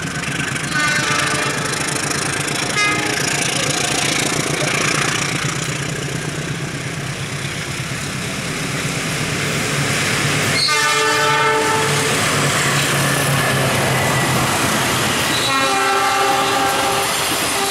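Passenger train passing with its diesel locomotive's horn sounding: short toots about a second in and near three seconds, a longer blast a little past halfway, and another blast near the end. Underneath, the locomotive engine drones steadily and the wheels clatter on the rail joints.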